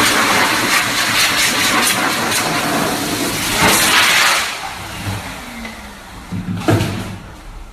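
Loud steady rushing noise from a running motor-driven appliance that dies away about four and a half seconds in, followed by a few faint knocks.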